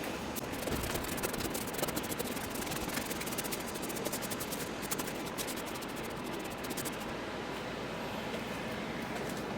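Crackling, scraping handling noises of things being moved and rubbed, over a steady hiss; the crackling dies away about two seconds before the end.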